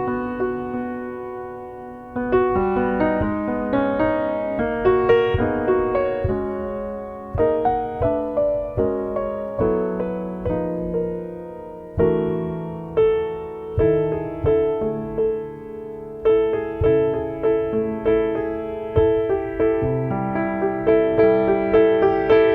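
Solo piano music played at a gentle pace, single notes and chords struck and left to ring and fade.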